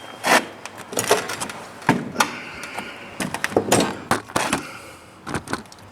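A string of irregular knocks, clicks and scrapes, about a dozen sharp hits spaced unevenly, with a short scraping rustle in the middle.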